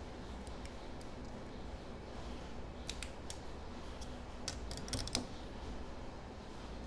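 Light clicks and taps of small tools handling a MacBook, a few scattered and then a quick cluster about three to five seconds in, over a steady low hum.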